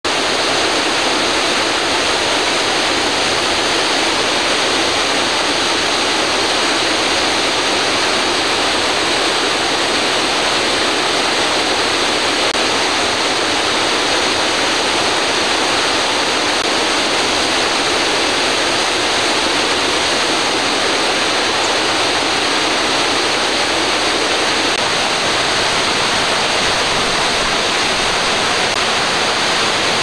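Waterfall rushing: a loud, steady hiss of falling water that does not change.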